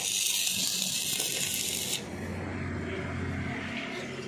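Stick-welding arc burning on steel rebar: a loud, steady hiss that cuts off abruptly about two seconds in, followed by a quieter low hum.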